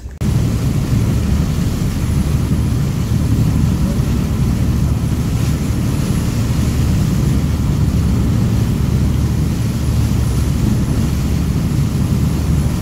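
Fishing boat running at speed at sea: a loud, steady rumble of engine, wind and rushing water, which starts abruptly just after the start and cuts off abruptly near the end.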